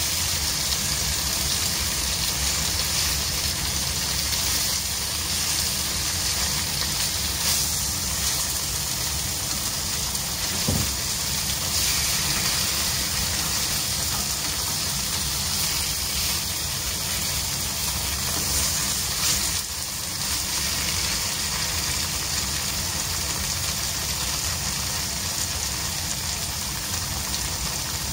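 Tofu cubes frying in oil in a nonstick wok over low heat: a steady sizzle.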